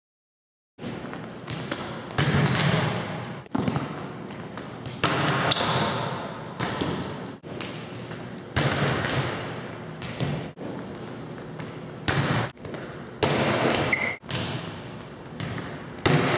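Volleyballs being hit and bouncing on a hardwood gym floor, starting about a second in: a series of sharp thumps, each followed by echo in the large hall.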